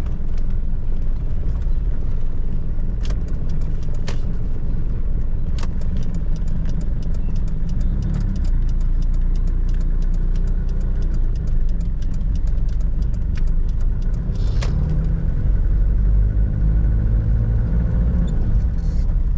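Cabin sound of a 1997 Toyota Hilux's 3.0-litre 5L four-cylinder diesel on the move: a steady low rumble of engine and road noise, with many scattered sharp clicks. From about two-thirds of the way in, the engine note rises as the truck speeds up.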